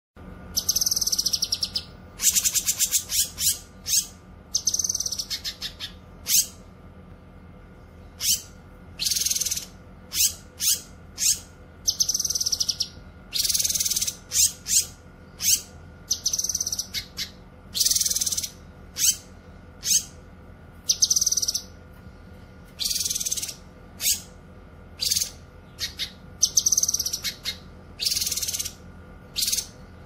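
A cucak kinoy leafbird singing a long run of short, rapid chattering phrases, each under a second long and high-pitched, with brief pauses between them. A faint steady hum sits underneath.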